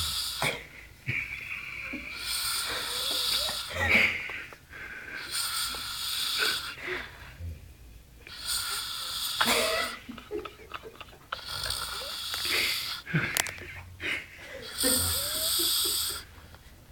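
A person snoring, a noisy rasping breath coming back every few seconds.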